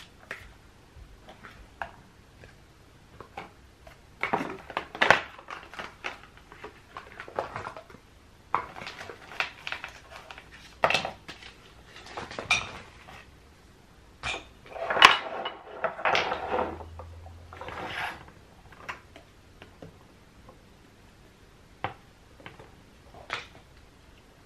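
Makeup tubes, bottles and compacts being picked up and set down, clinking and clattering against each other and the wooden vanity top in irregular bursts, busiest around the middle.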